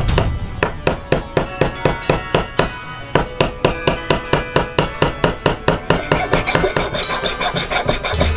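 Small ball-pein hammer tapping wooden wedges into the top of a new wooden handle fitted in a lump hammer's steel head, a steady run of quick taps about four a second, driving the wedges to tighten the split handle in the eye. About six seconds in the tapping gives way to a file rasping across the wedged end of the handle.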